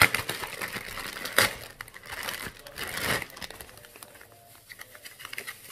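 Clear plastic packaging bag crinkling and rustling as it is opened and a coiled strap is pulled out, with sharper crackles about a second and a half in and again around three seconds in, then fainter rustles.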